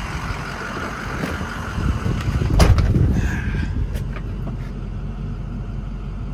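Ford 6.0 Power Stroke V8 turbo-diesel idling steadily, heard from the cab with the door open. A single knock comes about two and a half seconds in.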